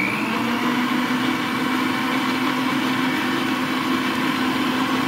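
Frigidaire stand mixer's motor running loudly at a steady speed with an even whine, its beater churning cream cheese and whipping cream batter in the stainless steel bowl.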